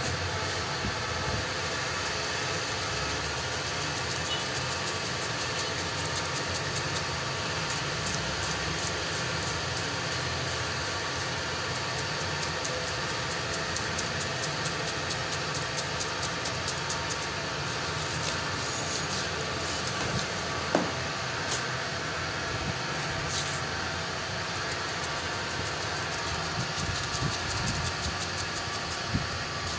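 Steady street noise, an engine-like rumble with hiss, under faint rapid clicks of a knife cutting through watermelon flesh. A couple of sharper knocks come about twenty seconds in.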